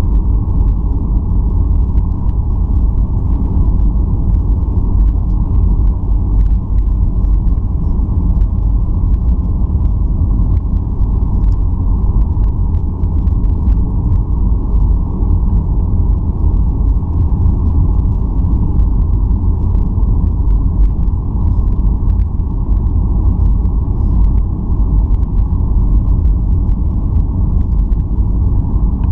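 Steady, loud rumble of airliner cabin noise inside a Boeing 737-800 on approach: airflow and engine noise, with faint scattered ticks above it.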